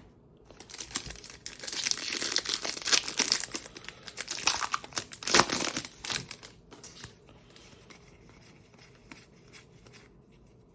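Plastic wrapper of a football trading-card pack being torn open and crinkled, a dense crackling for about six seconds, then quieter rustling.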